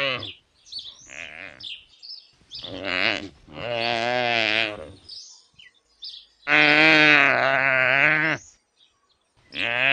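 Wildebeest calling: a series of drawn-out calls, several in a row, wavering slightly in pitch. The longest and loudest comes about two-thirds of the way through, and another begins near the end.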